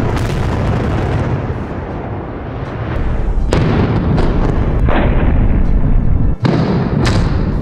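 Explosive demolition charges firing on a steel truss bridge: four sudden blasts, the first at the start and the others about three and a half, five and seven seconds in, each trailing off in a rumble.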